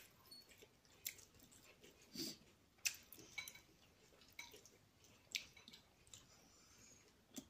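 Faint chewing of a soft apple doughnut, with irregular wet mouth clicks and smacks.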